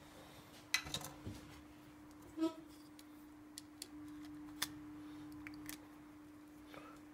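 Small clicks and taps of a mobile phone's circuit board and plastic parts being handled while the phone is put back together, over a steady low hum; a short squeak-like blip sounds about two and a half seconds in.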